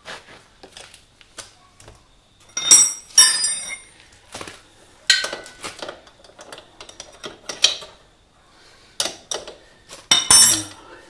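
Metal clinking and clattering as a motorcycle's rear axle nut and chain adjuster hardware are worked by hand: a string of sharp, ringing metallic knocks, the loudest a little under a third of the way in and near the end.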